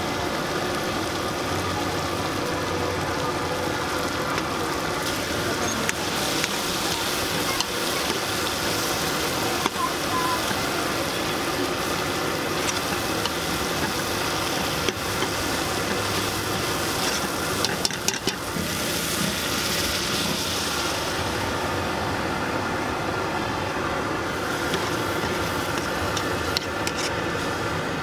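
Tomatoes, onions and garlic sizzling in oil in an aluminium pot, with a metal ladle now and then clicking and scraping against the pot. A steady mechanical hum runs underneath. The sizzle thins out in the second half as liquid is added.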